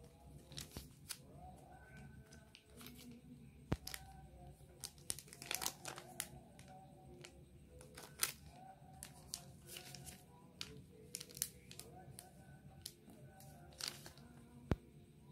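Glossy plastic face-mask packets crinkling and crackling as they are handled, in scattered short bursts, with two sharper clicks, one about four seconds in and one near the end.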